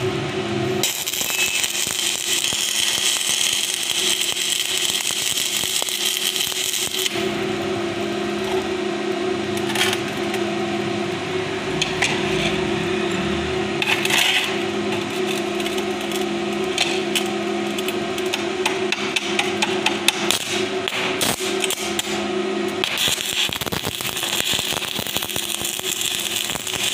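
Stick (shielded metal arc) welding: the electrode's arc crackling and hissing steadily as pieces of scrap steel are welded together. It stops after about seven seconds, leaving a steady low hum with scattered metal taps and clicks, and the arc crackle starts again near the end.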